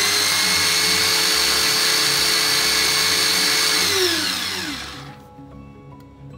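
Moulinex Fresh Express electric grater-slicer's motor running with no food in it, a steady whine with the grating cone spinning free. About four seconds in it is switched off and the whine falls in pitch as the motor winds down.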